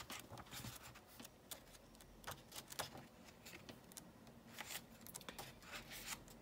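Pages of a paperback booklet being flipped one after another: a faint series of quick paper flicks and rustles.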